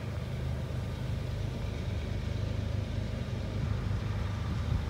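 Distant Norfolk Southern GE ES44DC diesel locomotives, with their GEVO-12 engines, approaching as a steady low engine drone.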